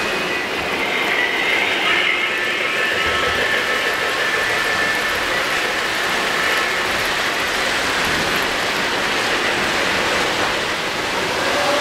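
O-gauge three-rail model freight trains running past on the layout's tracks: a steady rolling noise of metal wheels on the rails, with faint high steady tones early on.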